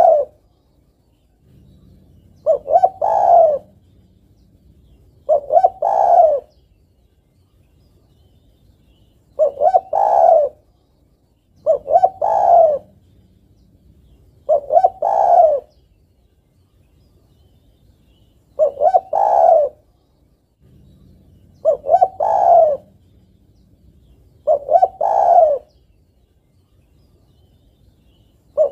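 Spotted dove (tekukur) cooing: about eight repeated coo phrases of a few notes each, spaced roughly three seconds apart. This is a female calling for a male, the kind of call used to lure males.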